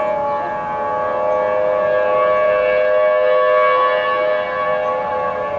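Federal Signal Thunderbolt tornado siren sounding a steady, two-note chord, its level swelling slightly past the middle and easing near the end. Its pitch is off, which the uploader suspects may be a speed issue with the chopper motor.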